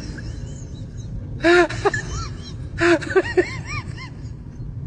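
Low rumble of street traffic and a car engine, with bursts of short high-pitched calls about a second and a half in and again near three seconds.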